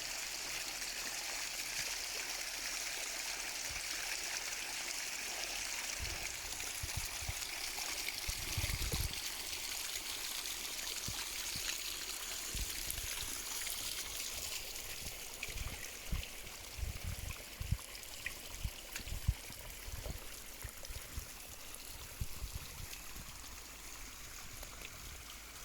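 Stream water flowing with a steady rushing and trickling, softening after about fifteen seconds, with scattered low thumps in the second half.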